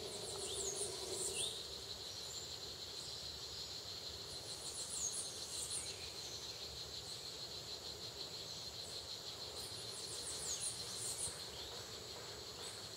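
Forest ambience: a steady, high insect trill. Over it come a few thin, very high bird calls, each a quick run of notes ending in a downward slur: about a second in, around five seconds, and again near ten seconds.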